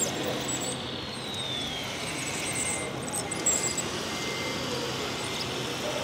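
Steady outdoor background noise with faint, indistinct voices. A thin whine falls in pitch about a second in, and a steady high tone comes and goes in the second half.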